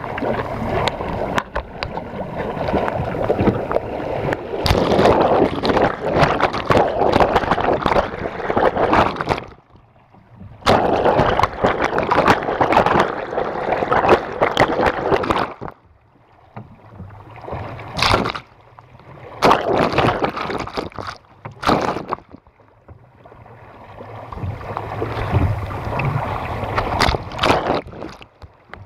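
Lake waves splashing and rushing against the side of a small boat's hull as it runs downwind through chop, with water breaking over the waterline camera. It comes in long loud spells of rushing water broken by short lulls, with several sharp splashes slapping the lens.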